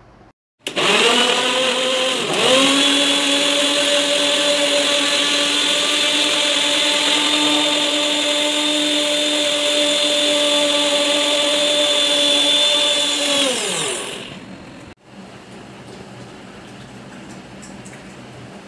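Electric mixer-grinder blending muskmelon pieces with jaggery and a little water into juice: the motor starts with a steady whine, briefly slows and picks up again about two seconds in, then runs evenly until it spins down after about thirteen seconds.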